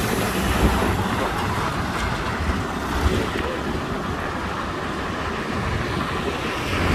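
Steady road traffic noise, with wind rushing over the microphone of a phone carried on a moving bicycle.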